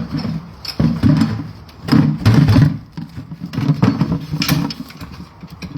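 Swarm of honeybees buzzing close to the microphone from an opened hive. The buzz swells and fades unevenly, loudest about two to three seconds in, with a few light knocks of handling.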